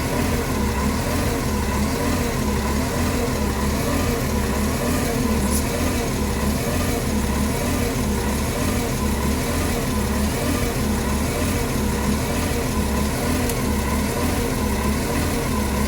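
Engine of a 2008 New Flyer C40LF natural-gas transit bus idling roughly: its low hum pulses in a steady, uneven lope.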